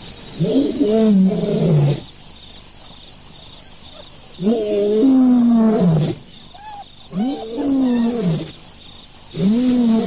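Lions calling: four drawn-out, harsh calls, each rising and then falling in pitch, with short pauses between them. Two brief higher upward calls come in between, over a steady high insect trill.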